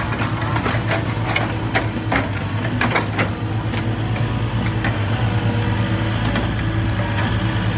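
An engine running steadily at idle, with a run of clicks and knocks through the first three seconds or so.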